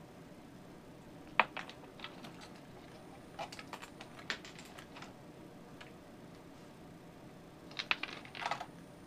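A monkey rummaging in an open can of nuts: nuts and fingers click and rattle against the can in small clusters of sharp clicks a few seconds apart, the loudest about a second and a half in.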